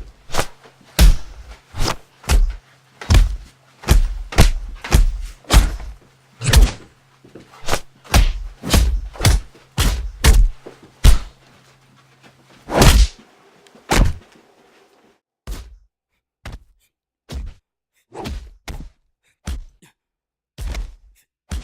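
A fast series of punch and kick impact sound effects, heavy thuds and whacks several a second over a low steady drone. One especially heavy hit lands about 13 s in, after which the drone stops and the hits come sparser with silence between them.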